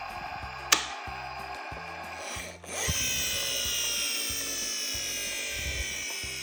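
A sharp click, then a high whir from a toy car's small motor that starts about three seconds in and slowly drops in pitch as it runs down, over background music with a steady bass line.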